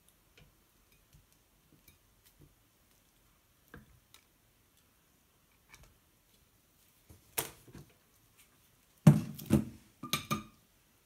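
Faint scattered clicks of silicone-tipped kitchen tongs handling banana slices, then a few louder knocks and clatters near the end as utensils and containers are moved on the table.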